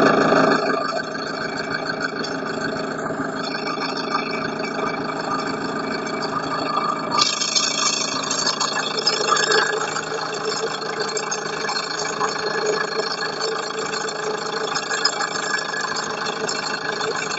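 Car engine idling with a knock in it, the engine knock the recording is made to show. Its sound turns brighter from about seven seconds in.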